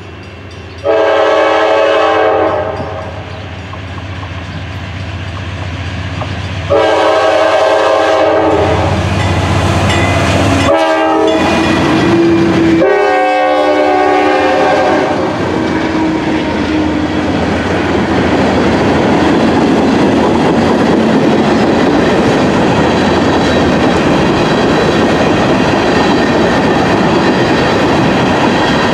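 A diesel freight train's multi-chime air horn sounds a series of long blasts and a short one, then the locomotives and freight cars roll past with a steady rumble and wheel clatter that fills the rest.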